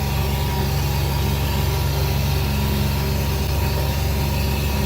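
Motor vehicle engine running steadily with a low, even hum.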